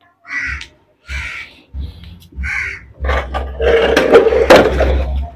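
Four short, harsh bird calls in the first three seconds, then a loud stretch of knocking and rustling from about three seconds in, as the air-conditioner outdoor unit's metal casing is handled.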